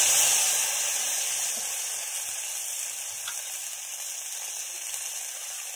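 Wet ground spice paste sizzling hard as it hits hot oil in a kadai. The hiss is loudest at first and slowly dies down.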